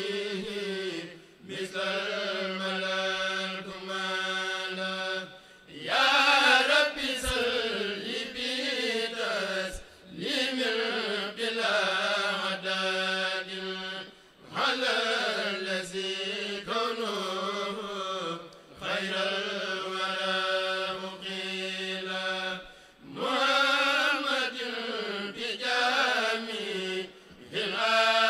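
A kourel of men chanting a Mouride khassida (Senegalese Sufi devotional poem) with no instruments, in long sung phrases over a steady held low note, each phrase broken by a short pause about every four to five seconds.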